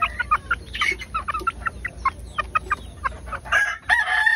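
Chickens pecking grain from a hand and off a wooden ledge, with a quick run of short clicks and clucks, about four or five a second. Near the end a loud drawn-out call begins, the start of a rooster crowing.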